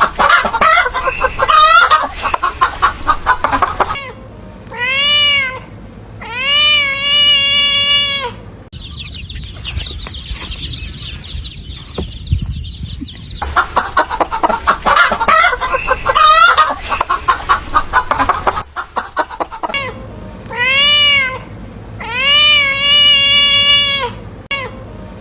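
Kitten meowing in several long, drawn-out meows, alternating with stretches of rapid hen clucking. The same sequence of clucking then meows plays twice.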